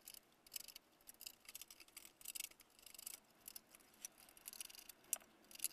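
Faint, irregular small clicks and scrapes of a hand screwdriver turning out screws from a projection TV's lens mount, with light handling of the metal bracket and plastic parts.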